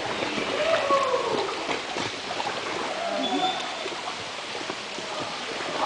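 Distant voices calling out over the steady rush of river water, with a short high whistle-like note about three seconds in.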